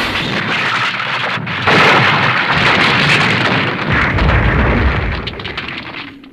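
Roaring explosion-like blast sound effect. A second, louder surge comes in under two seconds in, with a deep rumble, and it dies away near the end.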